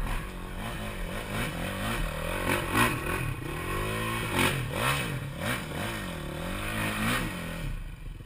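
Dirt bike engine revving hard up and down again and again as it climbs a steep loose dirt hill, the rear wheel spinning and throwing dirt, with scraping and clattering.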